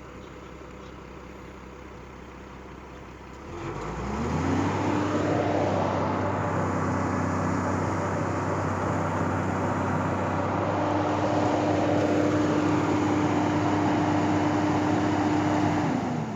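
Hitachi excavator's diesel engine running low, then revving up about three and a half seconds in and holding at high speed steadily, then dropping back right at the end.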